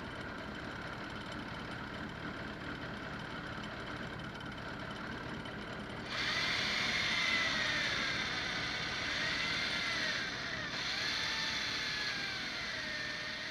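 A motor running with a steady hum. About six seconds in, it gets louder and a whine joins that slowly rises and falls in pitch.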